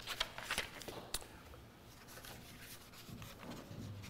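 Sheets of paper rustling as they are handled: a cluster of short rustles in the first second or so, then fainter ones.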